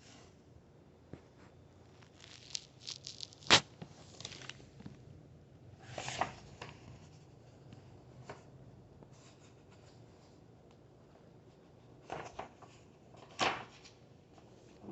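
Pages of a picture book being turned and handled: a few short paper rustles and swishes, with a sharp tap about three and a half seconds in.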